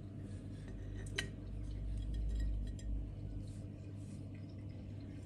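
Squash jam being ladled into glass jars: light clinks of a utensil against glass, with one sharper clink about a second in, over a low steady hum.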